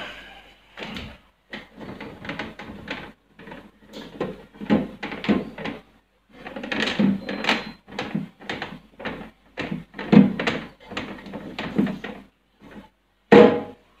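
Dry cloth wiping the plastic door bins and shelves inside a fridge: irregular rubbing strokes and light plastic knocks, with a brief squeak about halfway through and a louder bump near the end.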